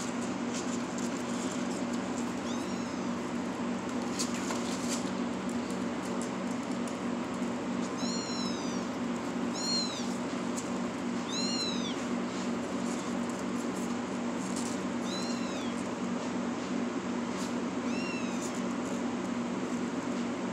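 Young kittens mewing: about six short, high-pitched mews spaced out over the stretch, each rising and falling in pitch, with a few faint clicks and a steady low hum underneath.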